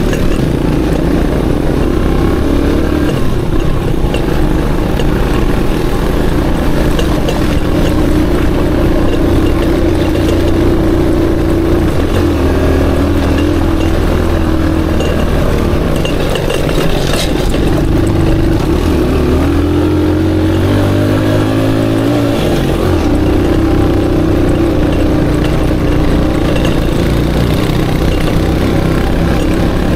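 Aveta Ranger Max Explorer motorcycle engine running under way. Its pitch holds steady for long stretches, then falls and climbs again around the middle as the throttle and speed change.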